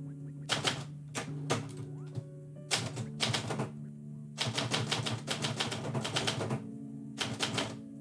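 Manual typewriter typing in uneven bursts of key strikes: a few short groups of clacks, then a long fast run in the middle and another short burst near the end. Background music with steady held notes plays underneath.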